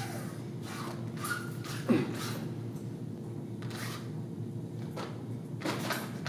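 Brief swishes and rustles from a taiji performer's loose uniform and straight sword (jian) cutting through the air, with a single thump of a foot on the padded mat about two seconds in. A steady room hum runs underneath.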